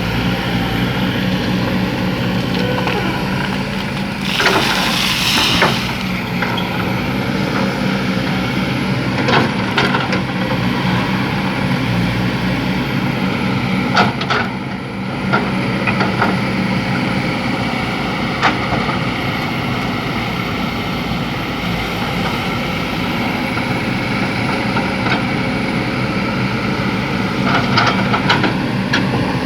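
Excavator's heavy diesel engine running steadily under load, with scattered knocks and clanks. A short rush of noise comes about four seconds in.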